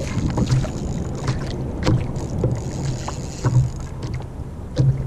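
Water lapping and slapping against a sit-on-top kayak's hull, with a few sharp knocks, the loudest about two seconds in, again around three and a half seconds, and just before the end.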